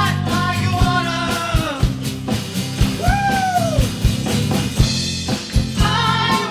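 Rock band playing a song, with a drum kit keeping a steady beat under a bass line and a sung vocal melody. A long held vocal note slides down in pitch about three seconds in.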